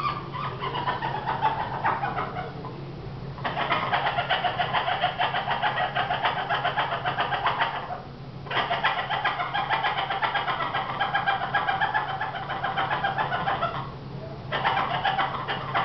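Yellow-naped Amazon parrot giving its courtship call: a wavering, falling 'ooooo' at first, then long runs of rapid, repeated 'eh eh eh' notes in three bouts with short pauses between them.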